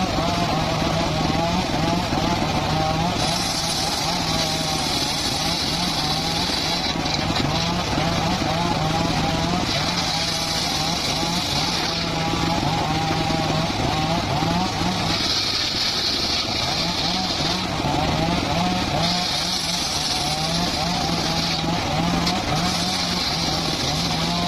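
Homemade engine-driven circular sawmill running steadily while sawing logs, with a high hiss coming and going five times, each lasting two to four seconds, as the blade cuts through the wood.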